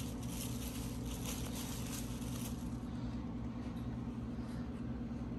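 Steady low hum of household room tone, with faint brief rustling in the first couple of seconds.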